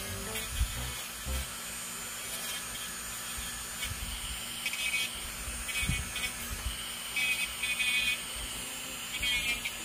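Electric nail drill running with a steady high whine, its small bullet-shaped bit grinding at the skin around a fingernail in short repeated passes, each contact adding a brief grinding sound.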